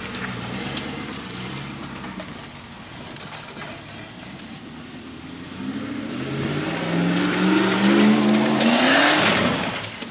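Off-road 4x4 engine running, then revving harder from about halfway with its pitch rising, loudest near the end before it drops away quickly.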